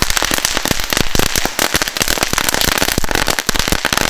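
A Category 1 crackling ribbon (knetterlint), a strip of tiny firecrackers, going off: a fast, dense string of small pops and crackles.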